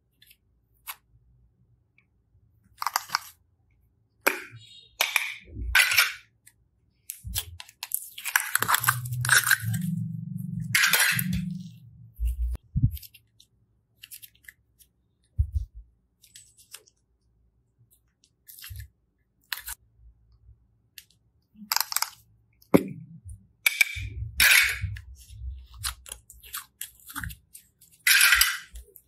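Slime being stretched and squeezed by hand: irregular crackles and squelching pops, in short bursts with quiet gaps between.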